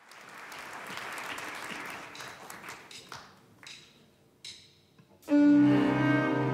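Audience applause dying away to a few scattered claps. About five seconds in, a live band starts the song's intro with a sudden, sustained string-like chord.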